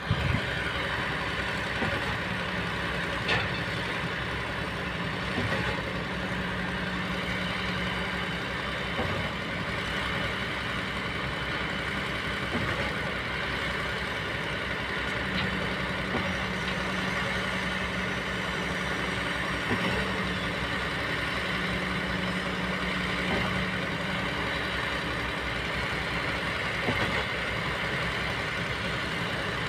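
Diesel engines of Kobelco hydraulic excavators running steadily under working load, the engine note swelling for a few seconds at a time, with a few sharp knocks now and then.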